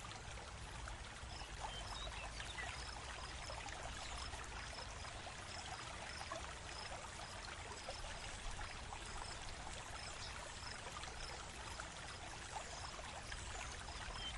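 Faint, steady background hiss, with faint high chirps repeating about one and a half times a second.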